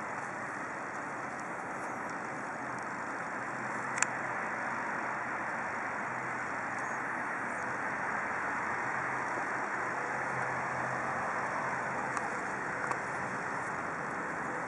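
Steady hum of city road traffic, with one sharp click about four seconds in.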